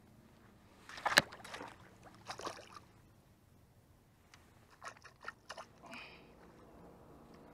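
Water splashing as a bass is released from the hand at the water's edge: a sharp splash about a second in and a second burst of splashing about a second later. A few short knocks and clicks follow near the end.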